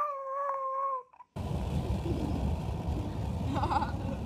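A dog holds a single long howl that falls slightly in pitch and ends about a second in. After a short gap comes the steady rush of wind and road noise from a moving car, with a brief wavering whine near the end.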